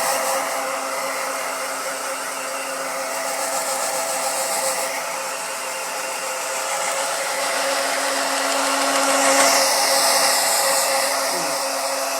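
Handheld hair dryer running steadily: a whirring rush of air over a motor hum, swelling and easing in loudness as it is moved about.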